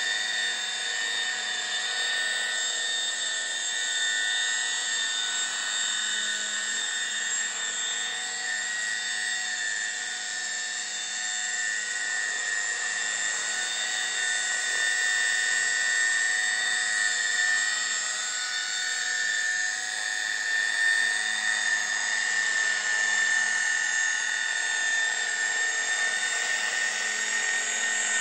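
JR Voyager E electric RC helicopter hovering: a steady high whine from its electric motor and gear train, with several fixed tones over the rotor noise. It swells slightly louder about two-thirds of the way through.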